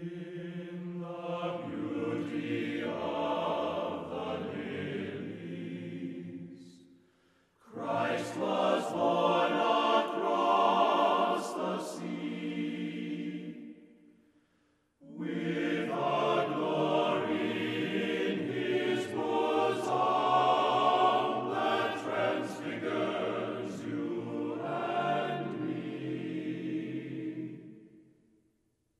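Choir singing slow background music in long held phrases, breaking off briefly about 7 and 14 seconds in.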